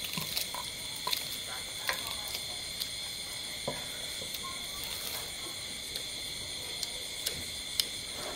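A steady, high chorus of night insects, like crickets, several pitches held together. Over it come scattered small clicks and smacks of people eating with their hands and chewing.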